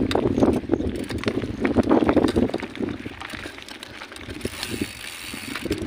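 Bicycle riding over a rough dirt and gravel trail: the tyres and frame rattle and knock irregularly with each bump, easing off for a while past the middle.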